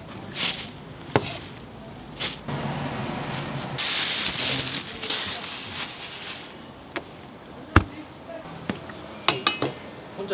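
A few knife strokes through onion on a plastic cutting board, then a rustling hiss for about four seconds. Near the end come scattered knocks and short metallic clinks of a spoon against a stainless steel bowl.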